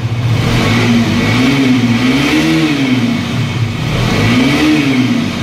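KTM RC 200's single-cylinder engine idling in neutral and revved twice with the throttle. Each rev rises smoothly and falls back to idle, the first peaking about two and a half seconds in and the second near the end.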